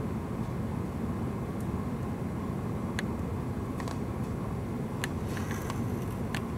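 Steady low rumbling noise, with a few faint sharp clicks in the second half.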